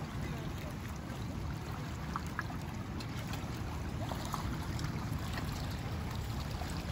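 Steady outdoor ambience of a low rumble with a hiss over it: wind on the microphone and harbour water washing against shoreline rocks.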